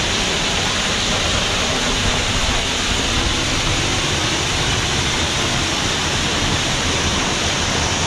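Large waterfall pouring, a steady, loud rushing of falling water.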